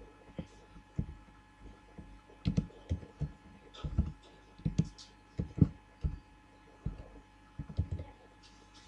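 Computer keyboard being typed on slowly, one key at a time: irregular dull keystroke thumps, one to three a second, over a faint steady electrical hum.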